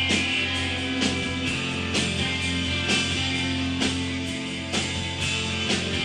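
Live rock band playing, guitar-led, with a strong beat landing about once a second.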